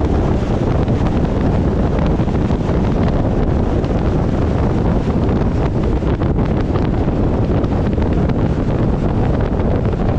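Steady wind noise on the microphone of a scooter moving at road speed, loud and heaviest at the low end, with no clear engine note standing out.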